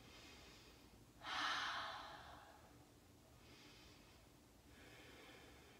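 A woman's deep, deliberate yoga breathing: one strong, airy breath about a second in, then two fainter breaths.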